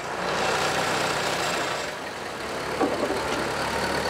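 Forklift engine running steadily while it pulls open an aircraft engine cowling by a strap.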